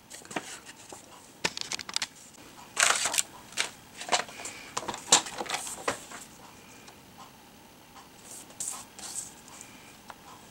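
Cardstock and patterned paper being handled and laid onto a plastic paper trimmer: a run of crisp paper rustles, taps and clicks, busiest between about one and six seconds in, sparser after.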